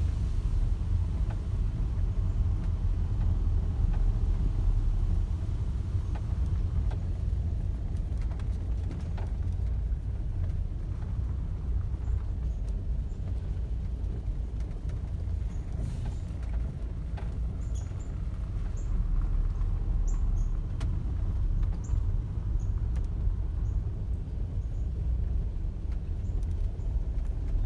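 Road noise inside a moving car's cabin: a steady low rumble from the tyres and engine.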